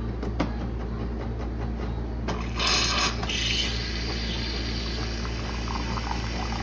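A small electric machine hums steadily, with a brief hiss lasting about a second, about two and a half seconds in.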